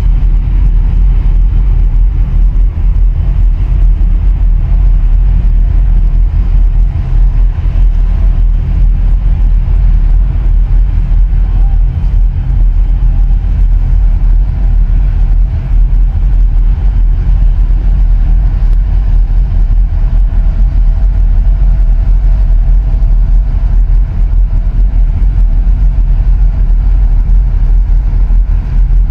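Steady, loud low rumble of a small boat's engine running under way, with the hiss of wind and water over it.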